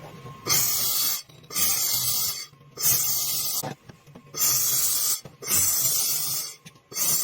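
Handheld laser welder firing in repeated passes: bursts of high hissing sizzle about a second long, separated by short gaps, five times over with a sixth starting at the very end.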